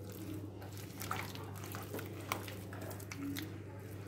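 A hand squishing and mixing chicken pieces in a thick, floury spice marinade in a bowl: faint, scattered wet squelches and soft clicks over a steady low hum.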